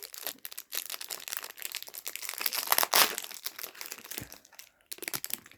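Sticker-pack packaging crinkling and crackling as it is torn open and handled, dense for about four and a half seconds and loudest around the middle, then a few scattered crackles near the end.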